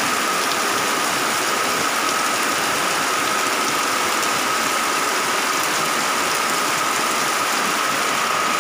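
Heavy typhoon rain falling in a dense, steady hiss, with runoff pouring off a roof edge.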